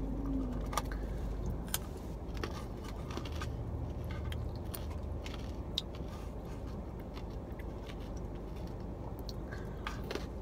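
Close-up crunching and chewing of a raw carrot stick: scattered crisp crunches and mouth sounds.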